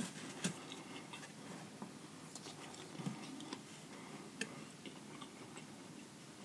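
Faint scattered clicks and taps: a couple of lip smacks from closed-mouth chewing in the first half-second, then light fingertip taps and handling of a smartphone.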